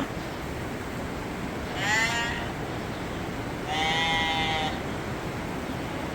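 Newly weaned lambs bleating twice, a short wavering call about two seconds in and a longer steady one about four seconds in, over a steady hiss of heavy rain and ice on the barn.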